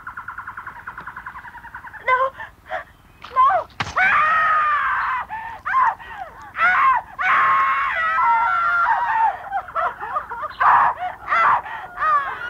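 A high-pitched voice screaming and wailing in long, bending cries, with short gaps between them. The first two seconds hold a rapidly pulsing buzzy tone.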